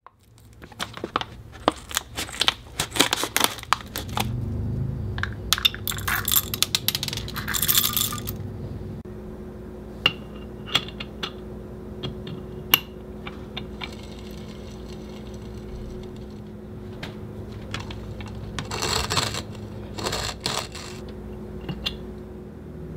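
Dry rattling and sharp clicks of coffee beans and the metal parts of a hand coffee grinder being handled, thickest in the first few seconds. A steady low hum runs under it from about four seconds in.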